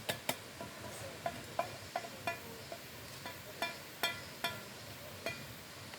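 Metal eating utensil clinking against a metal camping pot while eating: about a dozen irregular clinks, some ringing briefly.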